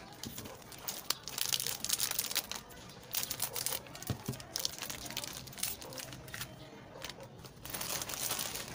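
Plastic Fudgee Barr snack-cake wrappers crinkling and tearing as they are opened by hand, in irregular bursts, with a light knock or two about four seconds in.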